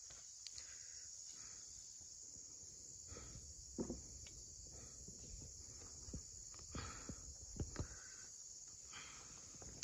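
Steady high-pitched chirring of insects, with a few soft knocks scattered through it.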